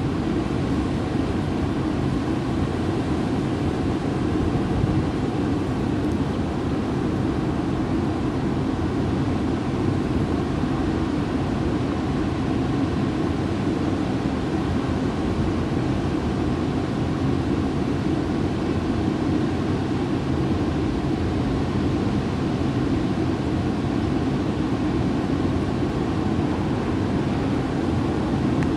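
Steady low rumble of background noise, even and unchanging, with no distinct events.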